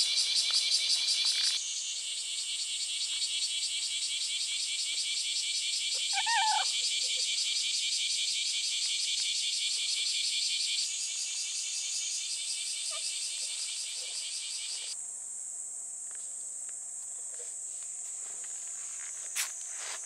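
Cicadas singing in a high, fast-pulsing chorus. The loudest stops about fifteen seconds in, leaving a steadier high buzz. A brief higher call is heard about six seconds in, and a sharp tap near the end.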